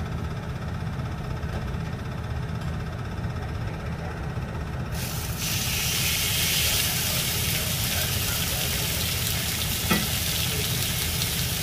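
A mackerel fillet sizzling as it is laid on a hot cast-iron grill pan: the frying hiss starts about five seconds in and then holds steady over a low rumble. A single light knock comes near the end.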